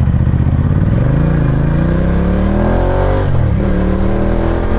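Ducati Diavel's L-twin engine accelerating: its pitch climbs for about two seconds, drops sharply at an upshift about three seconds in, then climbs again in the next gear.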